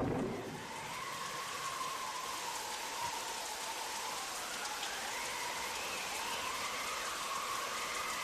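Steady rain-like hiss with a faint whistling tone that slowly rises and falls.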